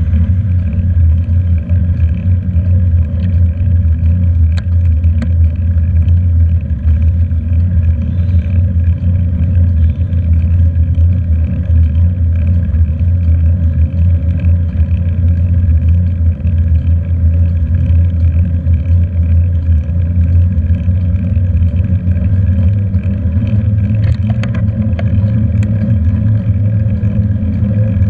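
Loud, steady low rumble of wind and road vibration picked up by a handlebar-mounted camera on a moving bicycle, with a few faint clicks about five seconds in and again near the end.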